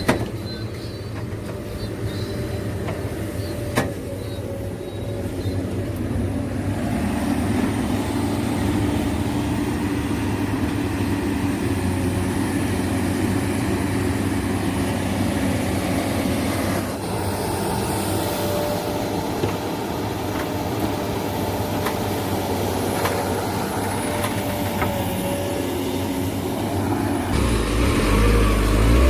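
Heavy diesel machinery, an excavator and dump trucks, running steadily with a sharp knock about four seconds in. The sound changes abruptly twice, as if between different shots.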